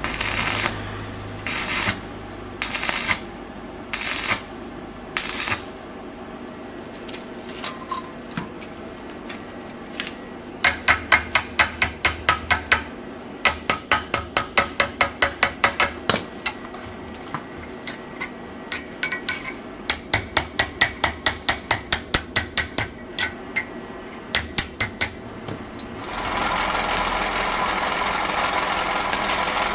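Hand hammer striking iron on an anvil in two long runs of quick blows, about three a second. Before them come five short scraping strokes, and near the end a steady rushing noise starts.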